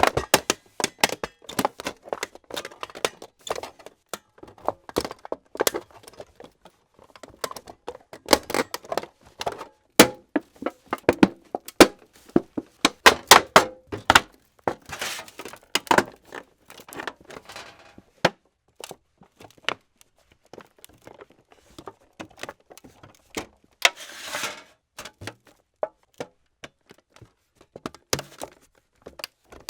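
A pile of old electronics and scrap tin, steel and aluminium being crushed: irregular metallic cracks, clanks and crunches, with a longer grinding crunch about fifteen seconds in and another near twenty-four seconds.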